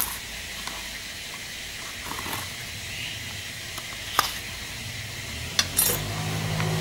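A small cardboard box being handled: a few scattered light taps and clicks over a steady hiss. Near the end a motor vehicle's engine rises in the background and grows louder.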